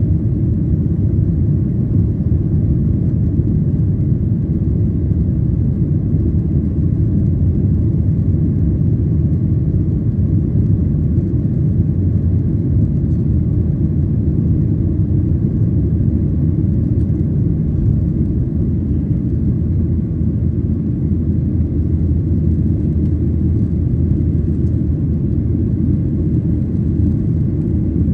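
Inside the cabin of a Boeing 737 airliner climbing after takeoff: the jet engines at climb power and the airflow over the fuselage make a steady, low rumble that never changes.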